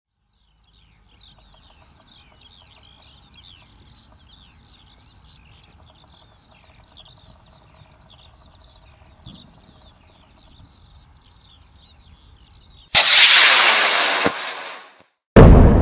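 Birds singing over faint wind. About three seconds before the end, a sudden loud blast dies away over about two seconds. Just before the end, another loud blast begins.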